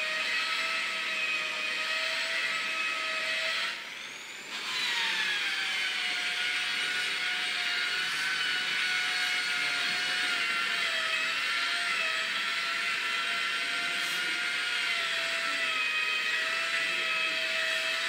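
Electric car polisher with a foam pad spinning against car paint, a steady high whine. About four seconds in it drops away briefly, then comes back and its pitch falls and settles before it runs steady again.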